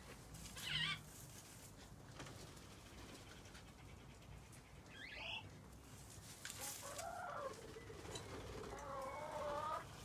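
Chickens clucking faintly, with longer wavering calls in the last few seconds. A brief high whistled bird note comes about five seconds in.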